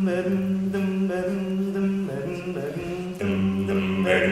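Male a cappella group singing a wordless backing intro: a held bass note under close vocal chords sung in short, repeated syllables.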